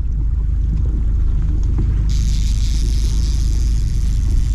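Steady low rumble of a fishing boat under way on the lake, with a higher hiss that joins about two seconds in.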